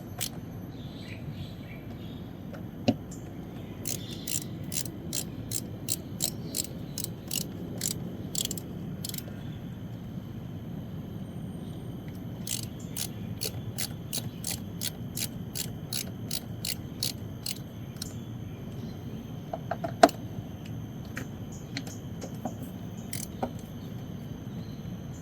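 Hand ratchet clicking in steady runs of about two to three clicks a second while working the Torx screws of the air box cover, with a single sharp knock about twenty seconds in.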